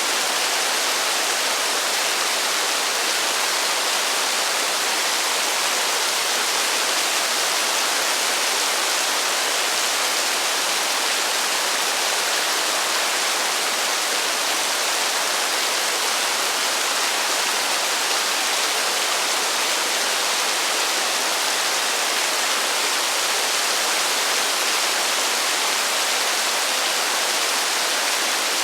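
Heavy rain falling: a steady, even hiss with no thunder.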